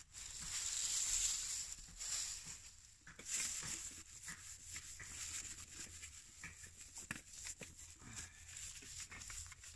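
Dry leaf litter rustling and scraping as it is rubbed against the side of a steel camp pot to wipe off soot, in uneven scrubbing strokes. The scrubbing is loudest in the first couple of seconds.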